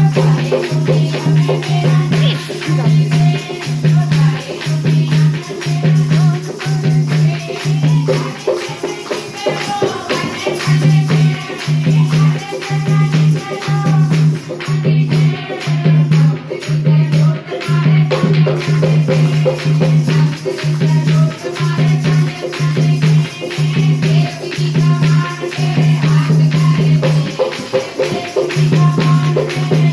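Bhajan: a voice singing a devotional melody over a steady low beat about once a second, with rattling percussion. The beat drops out briefly twice.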